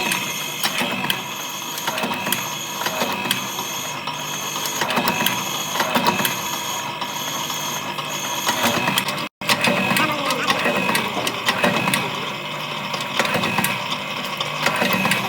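Metalworking machinery in an ammunition workshop clattering: rapid metallic clicks and knocks, with a high whine that switches on and off about once a second. The sound drops out briefly about nine seconds in.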